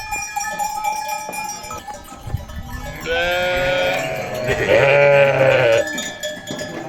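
Several sheep bleating loudly together, overlapping calls starting about three seconds in and lasting nearly three seconds. Livestock bells ring steadily before the bleating.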